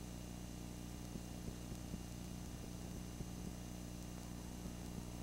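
Steady low electrical hum with a faint hiss underneath, from a blank stretch of an old videotape recording's audio track.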